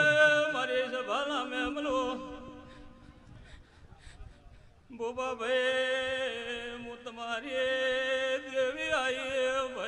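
Man singing long, held notes of a Gujarati devotional dhun over a steady drone accompaniment. The music drops away for about two seconds in the middle, then comes back strongly about five seconds in.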